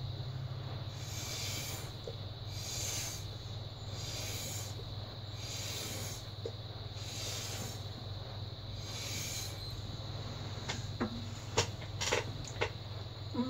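Breath blown through a drinking straw onto wet acrylic paint, a soft hissing puff about every second and a half, feathering the paint out across the canvas. Near the end come a few light clicks and taps, over a steady low hum.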